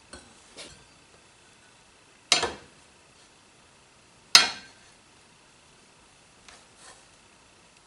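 A steel drive shaft collar disc being set down on a steel plate: two sharp metal clanks with a short ring, about two seconds apart. Faint taps and clicks follow as it is shifted into place.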